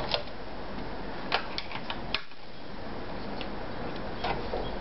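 Light, sharp clicks and taps of a Privileg Combi Super Automatic sewing machine's parts being handled by hand while it is threaded, including the free-arm bobbin cover being shut. About half a dozen clicks, bunched in the first half with a couple more near the end, over a steady background hiss; the machine's motor is not running.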